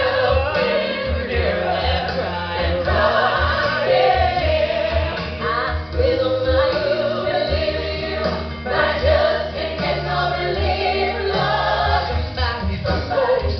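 Live rock show music: singers performing with a band over a steady, pulsing bass.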